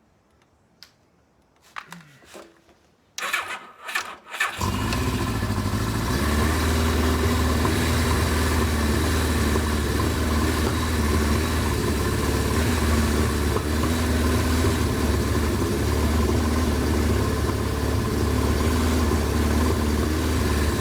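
1983 Suzuki GS1100GK's air-cooled inline-four engine being started: a few light clicks, then a second or so of starter cranking about three seconds in, after which the engine catches and idles steadily.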